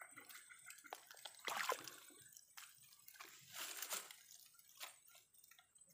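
Shallow swamp water sloshing and splashing in a few irregular bursts. The loudest come about a second and a half in and again near four seconds, with smaller splashes between.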